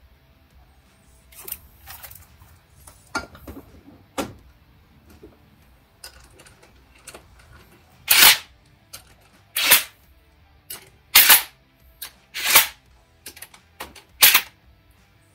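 Ratchet tightening the bolts on a transmission pump: a few faint clicks and knocks in the first half, then five loud, short, sharp ratcheting bursts about a second and a half apart.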